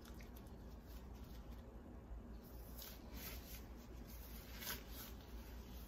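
Faint, irregular wet squishing and glove rustle as gloved hands gently fold lump crab meat through a mayonnaise sauce in a glass bowl, over a low steady hum.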